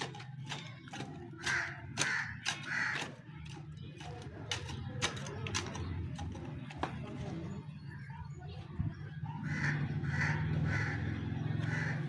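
Crow cawing in two runs of three or four caws, over scattered clicks and knocks and a steady low hum.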